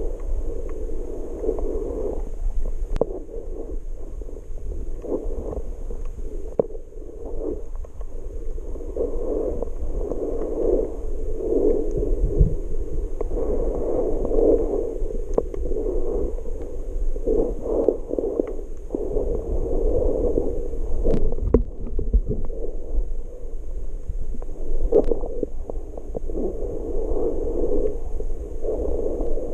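Muffled underwater water noise from a camera held below the surface: dull sloshing and gurgling that swells and fades unevenly, with a low rumble and a few sharp clicks.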